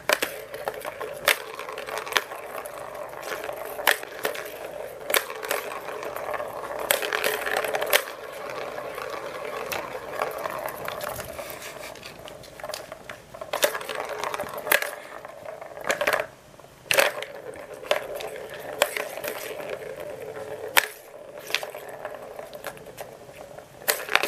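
A small plastic ball rolling round the tiers of a plastic ball-track cat toy as a cat bats it, a rattling rumble that comes and goes, with irregular sharp clicks as the ball knocks against the track.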